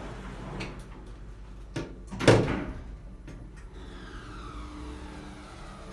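Otis Gen2 lift's sliding glass doors closing: a click, then a loud thud a moment later as the doors shut. A faint whine sliding down in pitch follows.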